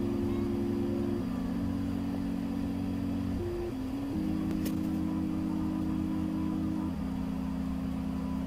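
Background chillhop music: sustained low chords that change every second or two over a steady bass.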